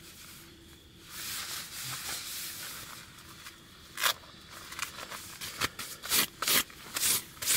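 Nylon rain jacket rustling as it is handled and adjusted: a soft rustle at first, then several short, sharp swishes in the second half.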